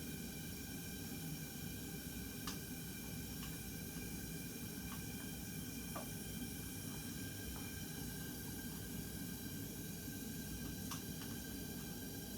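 Faint steady hum and hiss of room noise, with a few light, scattered clicks.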